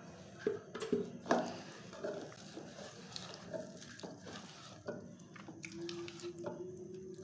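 A hand squishing and stirring a wet rice-flour and wheat-flour batter in a steel bowl, with irregular wet mixing sounds and a few sharp knocks against the bowl about a second in.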